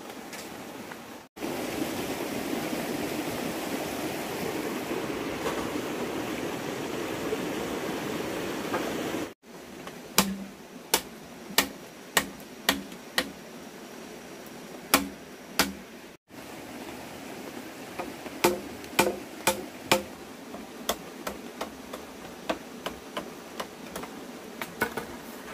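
A steady rushing noise for about eight seconds that cuts off abruptly, followed by a series of sharp, irregular knocks, one or two a second, consistent with hand work such as hammering.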